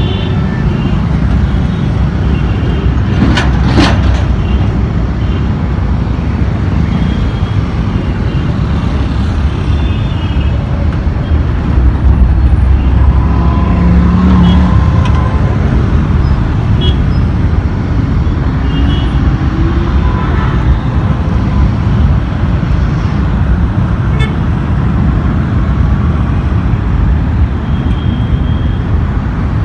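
Busy road traffic at a city junction: engines of motorcycles, cars and a CNG auto-rickshaw passing close, with short horn toots near the start and again a few times later. The engine noise swells as vehicles pass, loudest about halfway through when the auto-rickshaw goes by.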